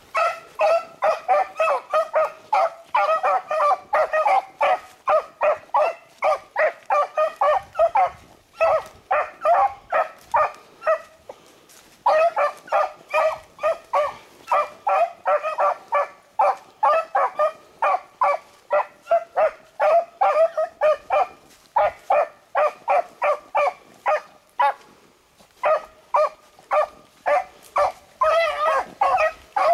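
A pack of beagles baying as they run a rabbit's track: fast, short barks, about three or four a second, with a few brief breaks.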